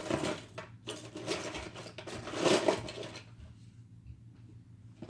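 Plastic Beyblade tops and parts clattering and rustling as they are rummaged through and handled, loudest about halfway through and quieter near the end.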